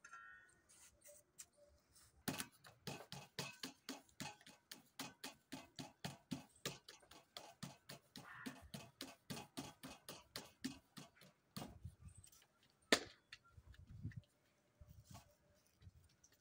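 Hands patting and slapping paratha dough flat on a floured table, a quick even run of pats at about four a second for several seconds, then a single sharp knock.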